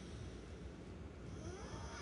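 A sleeping person snoring, a breath drawn in near the end.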